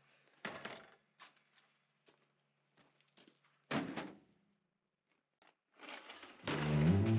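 Corrugated metal roofing sheets being handled: a few knocks and light clicks, a heavier clunk a little under four seconds in as the circular saw is set down on the tin, then a growing metallic scrape and rattle near the end as a sheet is dragged off the stack.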